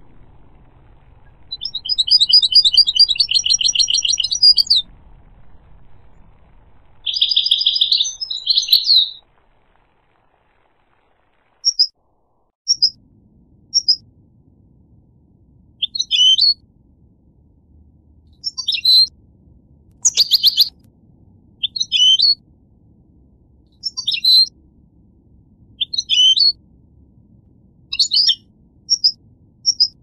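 European goldfinch singing: two long twittering phrases in the first nine seconds, then, after a few seconds of silence, short high chirps repeated about every two seconds.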